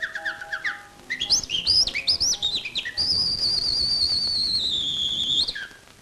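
A man whistling an imitation of a nightingale's song through hands cupped around his mouth. It goes from a quick run of short falling notes to swooping rising notes, then one long warbling high note that slowly sinks and ends with an upward flick about five and a half seconds in.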